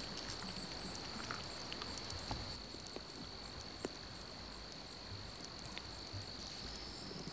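Crickets trilling steadily and faintly, with a few soft clicks scattered through.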